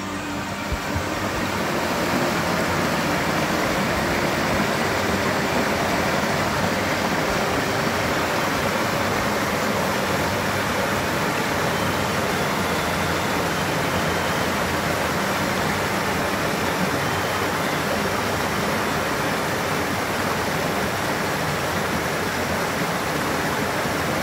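Steady rush of flowing water in a mountain headwater stream, an even hiss at a constant level.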